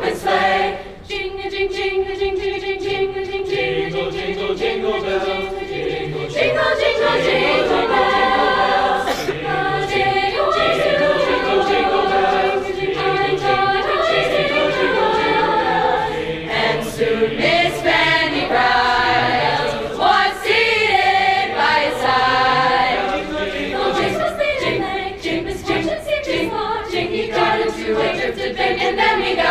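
A large school choir singing, many voices holding sustained notes in harmony. The singing swells louder about six seconds in.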